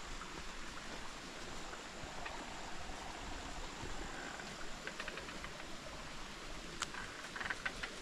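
Small stream trickling over rocks, a steady watery hiss, with a few sharp crackles near the end.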